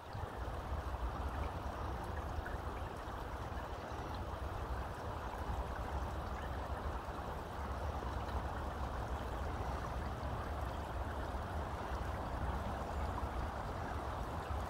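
River water flowing and lapping around shoreline boulders, a steady even rush, with a steady low rumble underneath.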